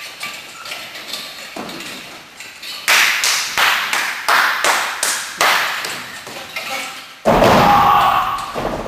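A run of sharp hand claps, about two a second, as a wrestler claps over his head. Then a loud, heavy thud as a wrestler drops from the top turnbuckle onto an opponent lying on the ring mat; it dies away over about a second and a half.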